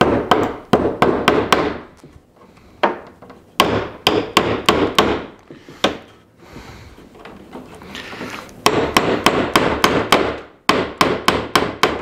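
Claw hammer driving a nail into a wooden fence-picket trim strip. The blows are sharp and come in several quick runs of about three a second, with short pauses between the runs.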